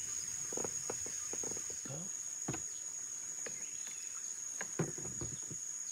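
Steady high trill of night insects such as crickets, with scattered small clicks and taps on top, one slightly louder near the end.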